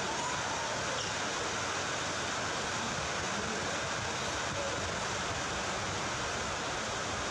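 Steady, even hiss of background noise with no clear events, and a few faint, short tones that rise and fall.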